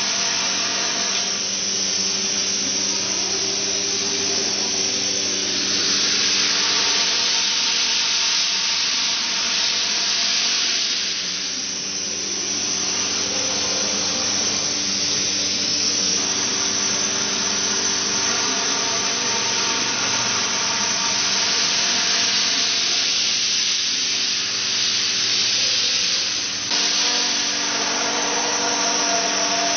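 A 5-axis CNC router spindle running and milling a block of expanded polystyrene foam: a steady whine of several tones under a hiss that swells and fades as the tool works through the foam.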